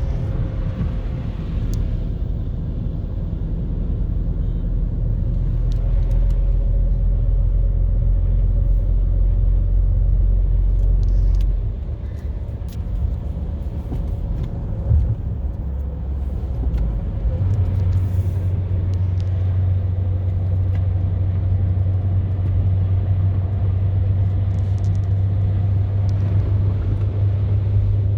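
Car driving, a steady low engine and road rumble that eases off about twelve seconds in and picks up again as a steadier low hum a few seconds later. One short knock about fifteen seconds in.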